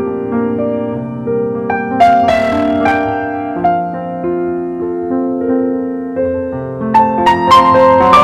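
Piano playing a patriotic tune in held chords, with brighter struck notes about two seconds in and again near the end.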